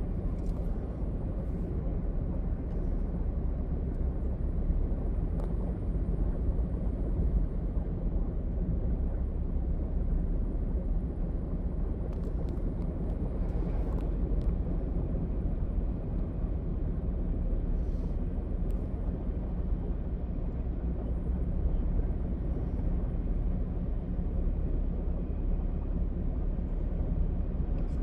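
Steady low rumbling noise, unchanging in level, with a few faint scattered clicks.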